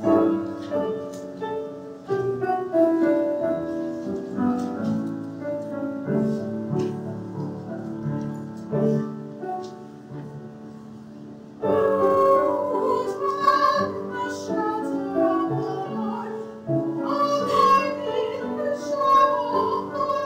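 A piano playing slow, held chords as an introduction, then a woman's singing voice comes in over the piano about halfway through, louder, with a wavering pitch.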